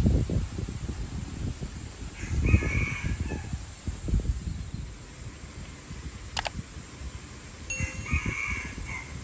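Breeze gusting over the microphone as an uneven low rumble. A bird gives a harsh call about two seconds in and again near the end, and there is one sharp click just after the middle.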